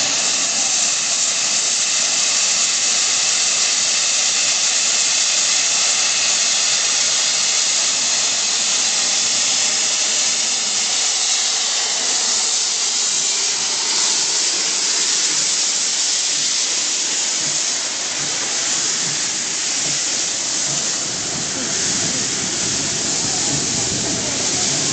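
SE&CR C-class steam locomotive No. 592 blowing off steam, a steady hiss that holds without a break.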